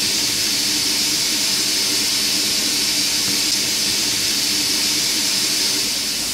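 Steady hiss of steam escaping from the standing Ivatt Class 4 2-6-0 steam locomotive 43106.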